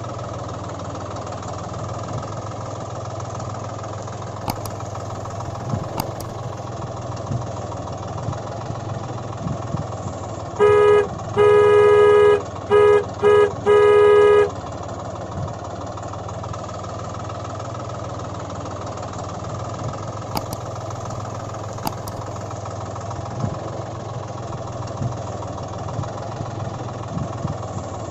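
Engine sound running steadily throughout, with a vehicle horn honked in five short blasts about eleven seconds in.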